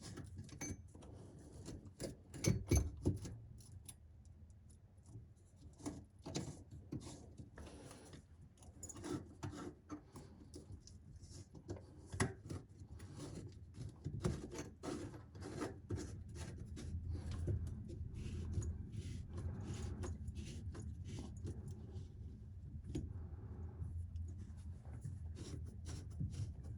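Sink drain pipe parts being handled and fitted back together, with many small clicks, taps and rubbing as the slip nuts are threaded on by hand. A low steady hum rises under the second half.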